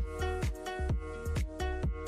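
Background electronic dance music with a steady kick-drum beat and sustained synth tones.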